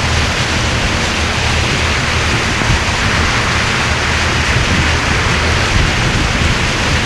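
Steady rushing of wind and water as a jonboat runs at speed under its 48-volt Elco electric outboard, with a low rumble underneath.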